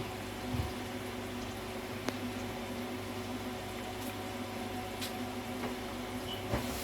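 Potterton Suprima gas boiler humming steadily with a faint sound of water moving, and a few light clicks, while it waits after a reset without igniting.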